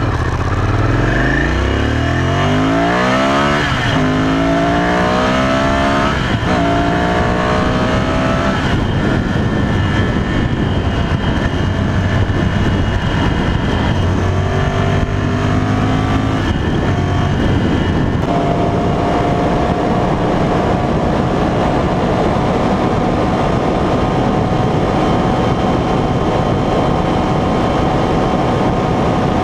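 Ducati Monster 795's air-cooled L-twin engine accelerating hard through several gears, each climb in pitch broken off by a shift, then holding a steady high-speed drone over the second half, with constant wind rush over the microphone.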